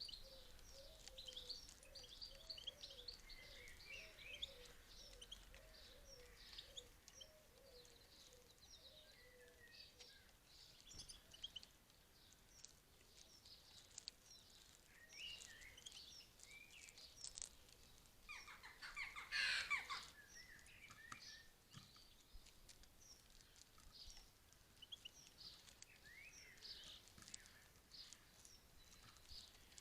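Faint twittering and chirping of small songbirds, with a lower repeating note for the first ten seconds or so and a louder, busier burst of calls about twenty seconds in.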